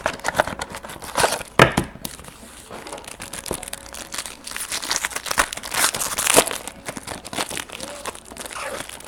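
A trading card pack's wrapper being torn open and crinkled by hand, a dense run of crackling with a few sharper rips about a second in.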